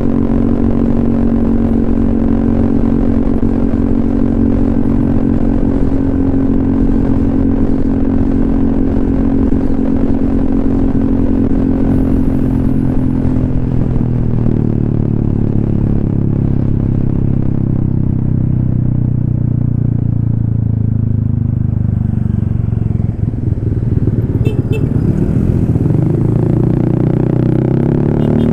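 Honda ADV 150 scooter's single-cylinder engine running through an SC Project silencer and Kawahara header while riding. It holds a steady pitch at first, then about halfway through the pitch falls gradually as the scooter slows, and it rises again near the end as the throttle opens.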